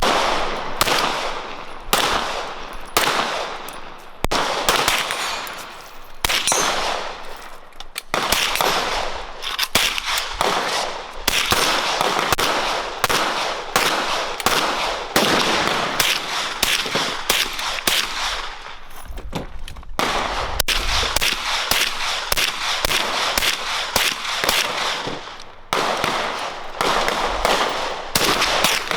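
Gunfire at a shooting range: many shots in irregular quick succession, several a second at times, each ringing out after it.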